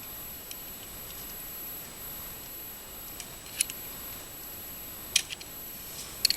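A few sharp, small clicks and taps from hands working the fuel line and its clamp free of a snowblower carburetor, the loudest ones past the middle and near the end.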